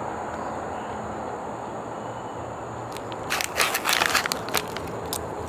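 Short burst of sharp crackling clicks about three seconds in, lasting a little over a second, over a steady background hiss.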